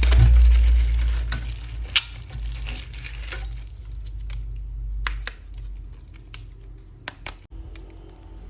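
Plastic toy packaging being handled and opened: crinkling with scattered sharp clicks, and a low rumble of handling noise over the first few seconds.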